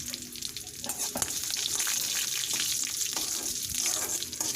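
Mustard seeds and curry leaves sizzling in hot coconut oil, with many sharp crackles as the mustard seeds splutter: the tempering stage of a rasam.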